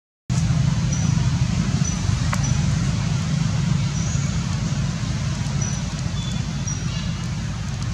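A steady low rumble with a few faint, short high chirps scattered through it; the sound cuts out for a moment at the very start.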